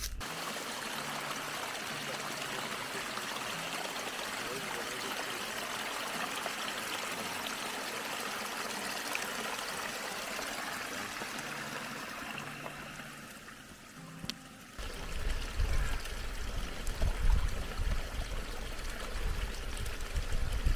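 Small spring-fed trickle of water running through grass, a steady hiss of flowing water. About two-thirds of the way in, low rumbling bumps on the microphone join in as the camera is brought down close to the water.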